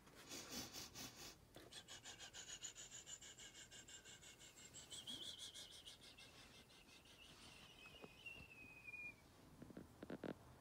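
Small brass bell rung with quick repeated strokes, its high ringing tone pulsing and then fading out over several seconds.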